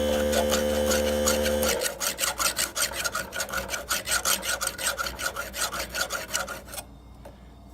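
A steady electrical hum cuts off about two seconds in. Then a file rasps across the chainsaw chain's teeth in quick, even, repeated strokes for about five seconds.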